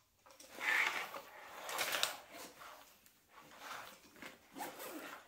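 Zipper on a black nylon backpack being pulled open in several short rasping pulls, with the bag's fabric rustling as it is handled.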